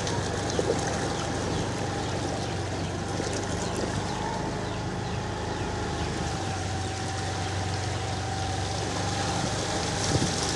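Motorcycle engine running steadily while the bike wades through floodwater, with water swishing around it.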